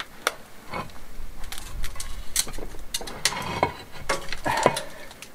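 Old clay roof tiles and loose rubble being worked free by hand: irregular clinks, knocks and short scrapes of fired clay against stone and mortar.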